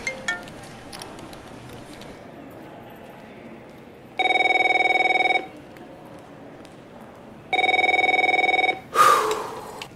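A mobile phone's marimba-like ringtone breaks off just after the start. A desk telephone then rings twice, each ring a steady electronic tone about a second long. Its handset is picked up with a sudden clatter near the end.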